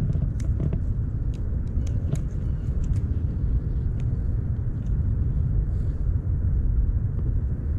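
Steady low rumble, with a scatter of light clicks and taps in the first three seconds and a few more later on.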